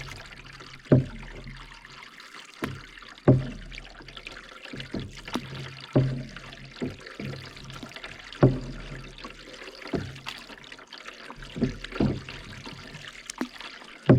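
Canoe paddles dipping and pulling through lake water, a sharp splash at each stroke about every two to two and a half seconds, with water trickling and dripping off the blades in between.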